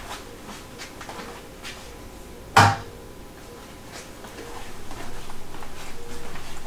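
A single sharp knock about two and a half seconds in, among a few faint ticks of handling, with background noise swelling over the last two seconds.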